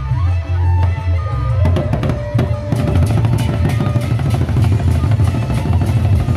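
Sasak gendang beleq ensemble playing: large two-headed barrel drums beaten in a fast, dense rhythm with cymbal clashes over them. The playing grows denser about one and a half seconds in.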